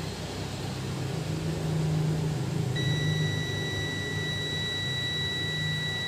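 Multimeter continuity tester beeping: a steady high-pitched tone starts about three seconds in and holds for about three seconds as the probes bridge a push button on a washing machine control board. It signals continuity through the button, a short that marks the button as faulty. A low steady hum runs underneath.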